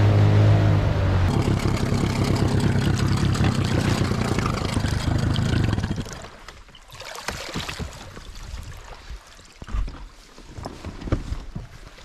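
Mercury outboard motor running at speed, driving an inflatable boat, with water rushing along the hull; its note changes about a second in and then holds steady. About halfway through it gives way to quieter, scattered crunching steps and knocks on a gravel shore.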